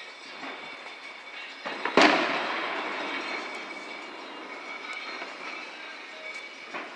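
A loud, sharp firework bang about two seconds in, its echo dying away over a second or so, with a smaller pop just before it and another near the end. Under it runs a steady hiss with faint high whining tones.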